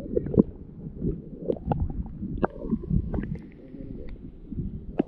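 Muffled gurgling and sloshing of water with irregular knocks and clicks, as a small fish is let go by hand into the water.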